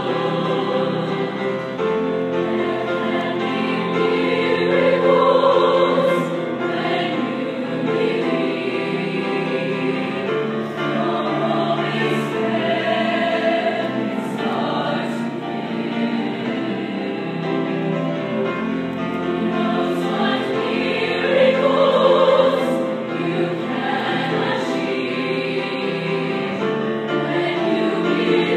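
Large combined choir singing together in sustained chords, swelling louder about five seconds in and again a little past twenty seconds in.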